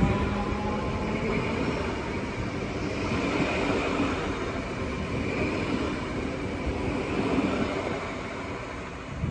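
Electric multiple-unit train of the DB class 424/425/426 family running, a steady rumble with a faint high squeal over it, easing off near the end.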